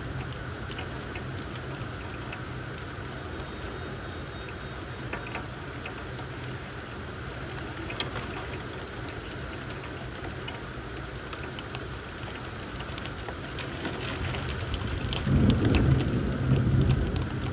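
Steady rain from a thundershower, with scattered drops tapping close by. A low rumble swells up near the end.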